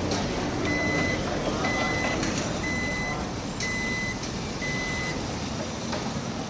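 A construction vehicle's backup alarm beeping five times, about once a second, then stopping, over a steady din of site noise with a few sharp knocks.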